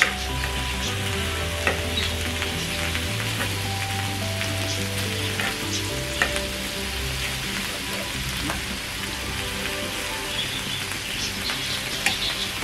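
Pork belly and brisket sizzling on a hot tabletop grill plate, with a few sharp clicks of metal tongs as the meat is turned.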